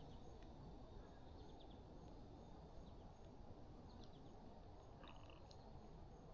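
Near silence: faint outdoor ambience with a steady low hiss and a few brief, faint bird chirps.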